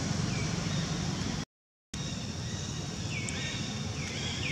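Steady outdoor background noise that cuts out completely for a moment about a second and a half in, then returns with a few short high animal calls that dip in pitch and level off.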